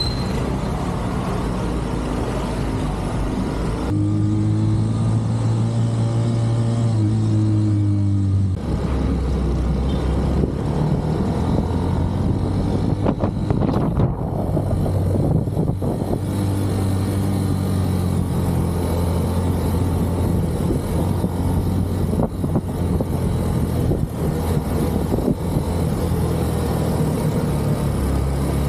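Motorcycle engine running as the bike is ridden through city traffic. The engine note shifts abruptly a few times, holding a steadier, stronger tone for a few seconds about four seconds in.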